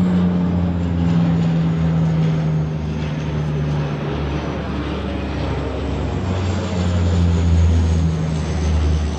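Twin-engine Canadair water bomber flying past, its propeller engines droning steadily with a pitch that slowly falls as it passes.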